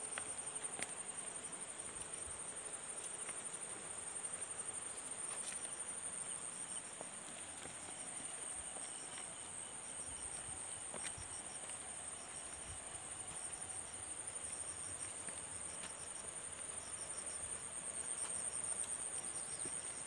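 Steady high-pitched trilling of a chorus of insects, joined in stretches by a second insect call that pulses in short rapid clusters. A few faint footsteps on a rocky dirt path.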